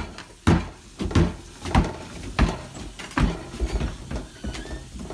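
Footsteps at a steady walking pace, about eight evenly spaced thumps.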